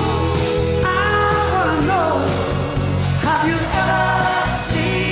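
Live rock band playing, with a male lead singer and backing vocals singing the chorus.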